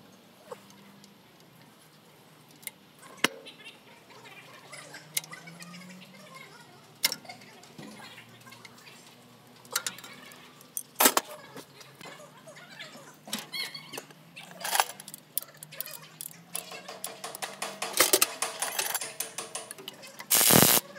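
Metal hand tools clinking and scraping on a diesel truck engine's bolts and brackets, with scattered sharp metallic clicks. A spell of rapid ratcheting comes in the last few seconds, and a short loud burst from a cordless impact wrench comes near the end.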